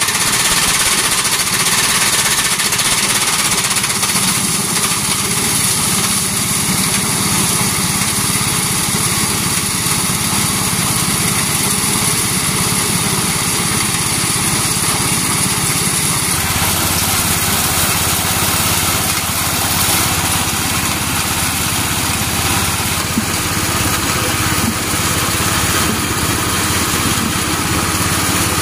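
Engine-driven corn sheller running steadily, its small engine humming under a hissing, rattling din from the shelling drum. The low hum deepens a little past halfway.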